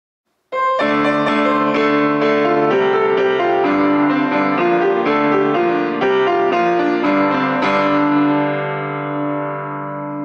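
Intro music: a keyboard tune of held chords and a moving melody. It starts about half a second in and begins to fade near the end.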